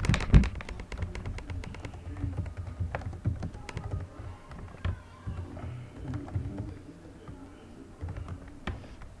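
Typing on a computer keyboard: a quick flurry of key clicks in the first two seconds, then scattered keystrokes and taps.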